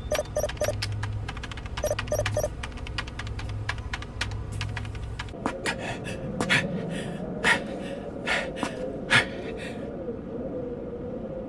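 Electronic computer-processing sound effects as a supercomputer searches photographs: quick groups of short beeps and a rapid patter of clicks over a low hum. About five seconds in this gives way to a steady wavering drone with several short sharp sounds.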